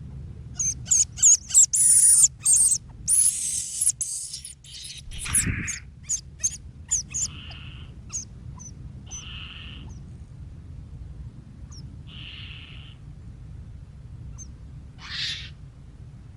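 Hoopoe calling: rapid high-pitched chirps and sharp notes for the first several seconds, then a few short hissing notes a couple of seconds apart, over a steady low rumble.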